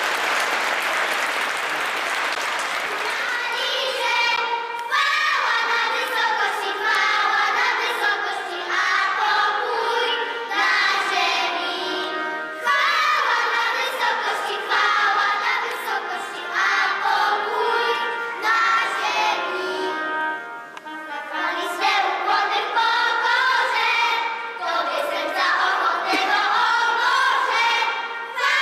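Applause dying away over the first few seconds, then a children's choir singing in unison.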